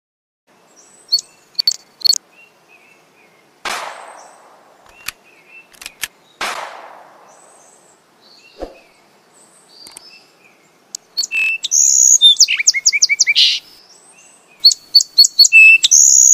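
Sparrows chirping: a few scattered chirps at first, then, from about two-thirds of the way through, a dense run of loud chirps and quick falling trills. Two whooshes sweep down a few seconds in, and one dull thump comes about halfway.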